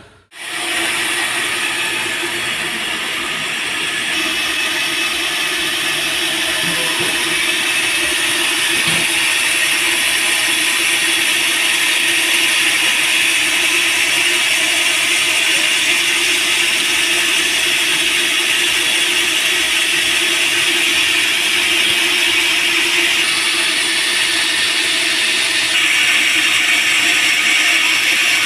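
Band sawmill running steadily, its blade sawing through teak wood.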